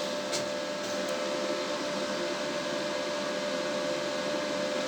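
Steady whirring noise of a fan-driven machine running, with a constant hum.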